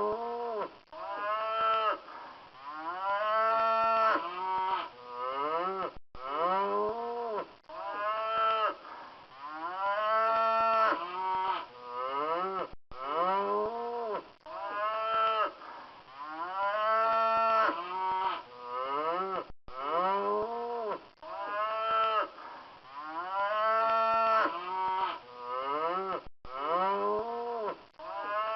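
Cattle mooing over and over, long pitched calls that mostly rise in pitch. The same run of moos repeats about every seven seconds, broken by brief gaps.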